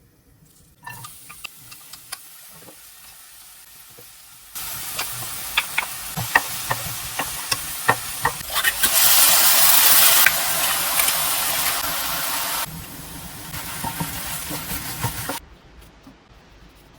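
Food sizzling in a frying pan while a spatula stirs it, with frequent clicks of the utensil against the pan. The sizzle changes loudness in sudden steps, is loudest about nine to ten seconds in, and cuts off about fifteen seconds in.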